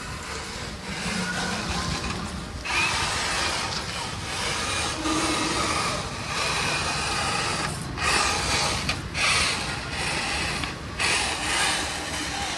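Micro RC crawler's small electric motor and gears whirring under throttle in loose sand, cutting out briefly several times.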